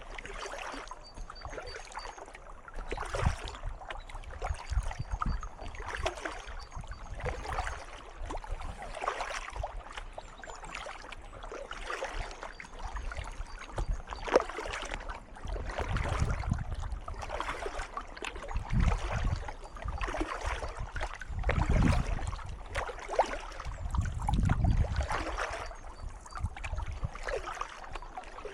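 Kayak paddle strokes splashing in calm water, a blade entering and pulling about once every second or so. A few low rumbles come in the second half.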